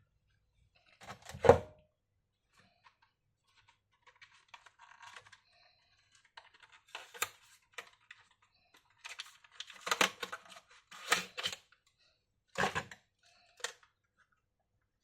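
Hands working on an opened laptop: one loud knock near the start, some light scraping, then a series of sharp clicks and knocks in the second half.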